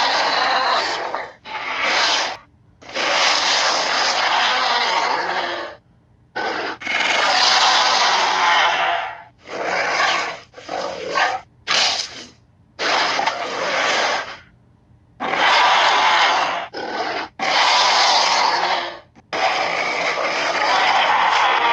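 Tarbosaurus dinosaur sound effects: a series of about a dozen rough creature roars and growls, each one to three seconds long with short pauses between them.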